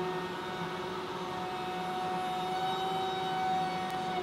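Table-mounted router running at speed with a rabbeting bit, cutting a rabbet (an inset step) into a wooden panel that is fed over the bit by hand. It makes a steady, high-pitched motor whine.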